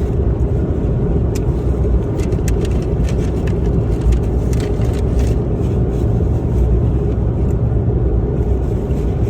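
Steady road and engine rumble heard inside the cabin of a moving car, with a few faint clicks.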